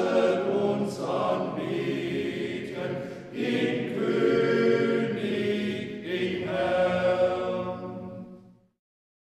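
Small monastery choir (schola) singing a chant in sustained notes, the last phrase dying away about eight and a half seconds in.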